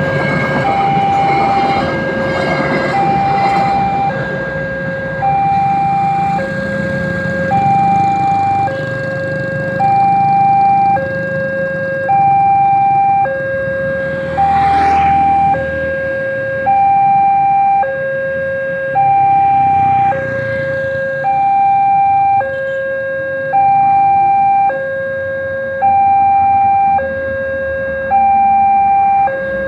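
Railway level-crossing warning alarm sounding a two-tone signal, a higher and a lower tone alternating about every 0.7 s without pause. A passing train's low rumble runs under it in the first seconds and fades.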